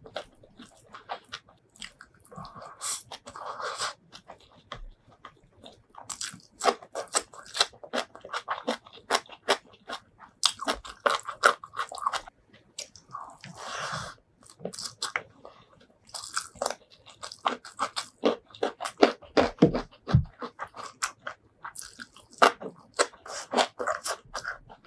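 Close-miked eating sounds: crunching bites and wet chewing of raw lalapan vegetables with rice and sambal, in a dense run of quick, irregular mouth clicks.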